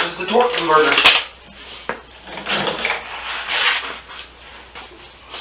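A man's voice muttering briefly, then a few handling noises: shuffling and scraping, with a light click of a tool.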